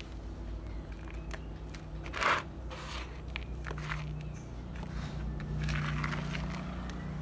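Gloved hand stirring and rubbing dry, crumbly soil in a plastic basin: irregular gritty scraping and crunching, loudest about two seconds in.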